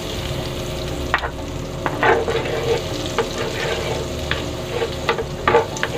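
Butter sizzling as it melts in a hot nonstick frying pan, with a utensil scraping and tapping against the pan as it spreads the pieces, giving a few sharp clicks over the steady sizzle.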